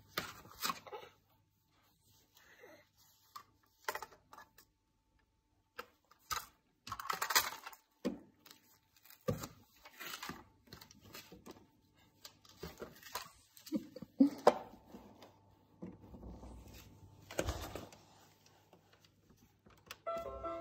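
Irregular taps, knocks and clicks of a toddler's hands on a windowsill and a plastic toy farm, over a faint steady hum.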